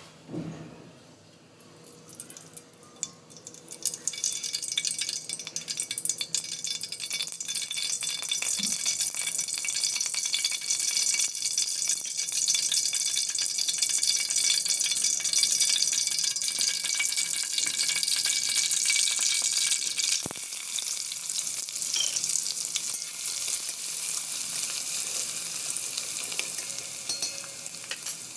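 A few clinks of a utensil against a pan, then about four seconds in, food starts sizzling in hot oil as it fries, a steady hiss.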